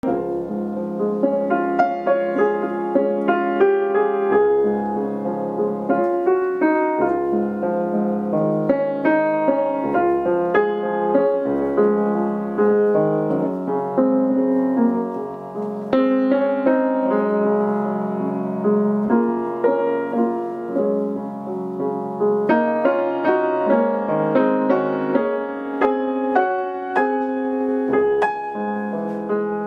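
Instrumental piano music playing a continuous run of notes as a soundtrack.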